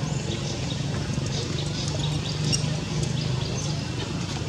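Outdoor ambience: birds chirping in short, scattered notes over a steady low hum.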